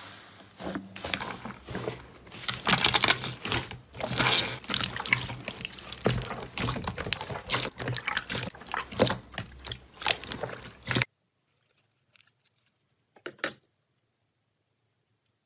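Hands squeezing and kneading slime: a dense run of sticky crackles and pops that stops about eleven seconds in. Then near quiet, with one short squish a couple of seconds later.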